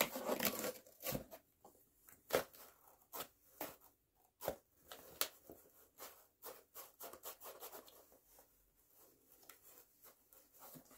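Cardboard dragon mask being moved about and its jaw worked open and shut by hand: irregular light scrapes, rubs and taps of cardboard.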